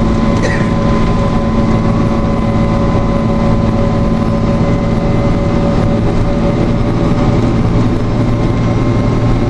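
Diesel engine and road noise of a MAN CAS 24 fire tender, heard from inside the cab while it drives at a steady speed. It is a constant loud drone with a faint steady whine above it.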